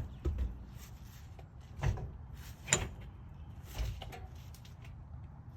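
A few scattered metallic knocks and clicks, the loudest a little before the middle, as the loose control arm mounting bolt on a Ford F-150's front suspension is worked by hand.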